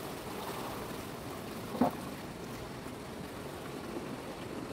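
Steady rush of running water, with one brief louder sound about two seconds in.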